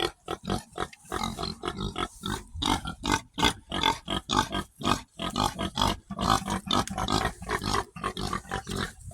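Pigs grunting and oinking in a continuous run of short, rough grunts, about three or four a second.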